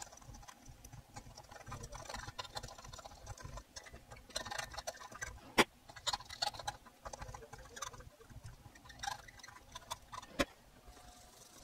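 A small precision screwdriver scratching and ticking as it scrapes hardened, baked-on rosin flux off the solder pads of a circuit board. Two sharper clicks stand out, one about halfway through and one near the end.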